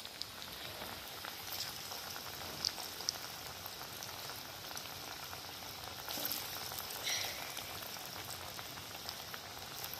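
Onion pakora batter deep-frying in hot mustard oil in a kadai: a steady sizzle with crackling, and a few louder pops and spits as fresh portions of batter go into the oil.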